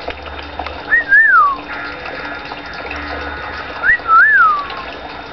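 Eclectus parrot whistling twice, about three seconds apart. Each whistle is a quick rising note followed by a longer note that rises and then slides down, like a wolf whistle.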